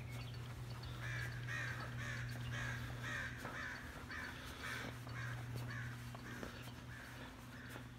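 A crow cawing in a quick series, roughly two calls a second, over a steady low hum.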